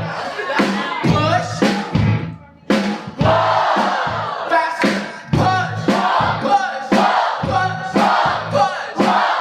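Live band playing an upbeat groove with a steady drum beat, while a singer and the audience chant back and forth in call-and-response. The music dips briefly about two and a half seconds in.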